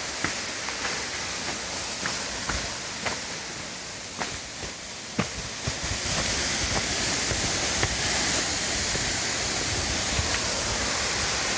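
Water falling at the Xorroxin waterfall, a steady hiss that steps up louder and fuller about six seconds in. Scattered light clicks and knocks sound over it in the first half.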